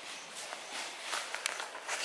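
Footsteps rustling and crackling in dry leaf litter, an irregular run of steps.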